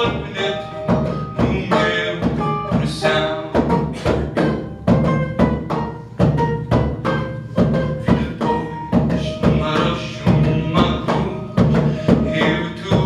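Bouzouki and double bass playing an instrumental passage: a fast run of plucked bouzouki notes over a plucked bass line.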